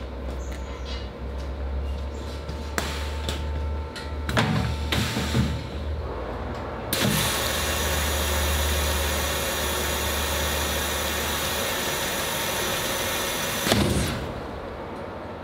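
ECOFILL HT1 aseptic bag filler running with a steady low hum and a few short hisses, then a loud, even hiss for about seven seconds while the bag on its tray fills out under the filling head. The hiss stops sharply with a knock near the end.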